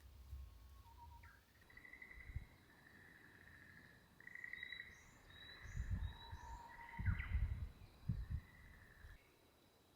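Birds singing a series of clear whistled notes, some held for about half a second, with low thuds and rumbles in between.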